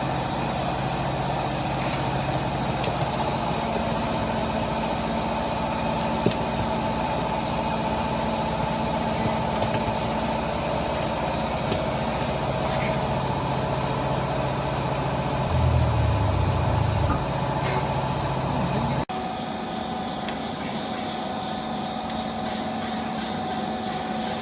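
Hydraulic baling press's electric motor and pump running with a steady hum. About two-thirds of the way through the hum deepens and grows louder for a moment. Then it cuts off suddenly, leaving a fainter steady machine hum.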